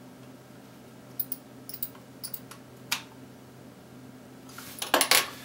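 Small Phillips screwdriver turning a tiny screw into the rear contact plate of a Canon 50mm f/1.8 II lens: a scatter of light metallic clicks, then a louder quick cluster of clicks near the end as the screw seats.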